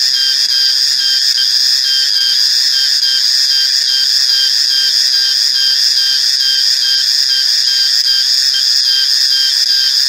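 Cicadas calling: a loud, steady, high-pitched buzzing drone with a faint regular pulsing in it.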